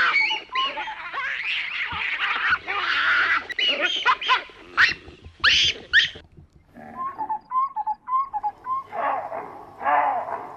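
Baboons calling: a dense run of loud, shrill calls, with several sharp rising calls in quick succession about five seconds in, then quieter short calls, and another burst of calls near the end.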